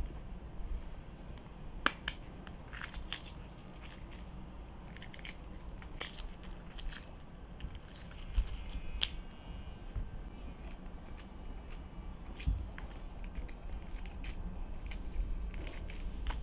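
Hard-boiled eggshells crackling and crunching as they are cracked and peeled off by hand, in many small irregular clicks.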